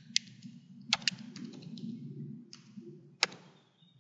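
A few computer keyboard keystrokes, spaced unevenly, over a faint low hum.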